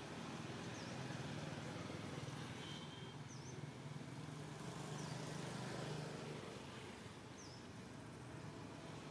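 Outdoor background noise: a steady low hum and rumble, with faint short high chirps every second or two.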